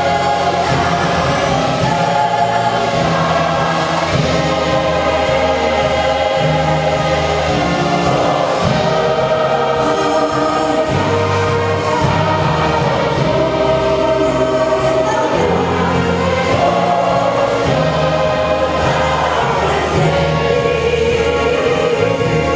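Church choir and orchestra performing a gospel hymn: the choir sings long held chords over sustained bass notes that change every couple of seconds.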